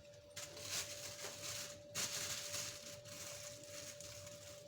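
Rustling and scraping in two stretches with a short break between, as chopped onion pieces are tipped into the pot of gongura leaves, over a faint steady hum.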